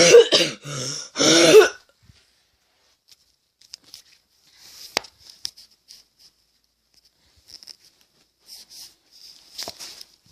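A person coughing hard, about three harsh coughs in quick succession, then faint clicks and rustles of handling.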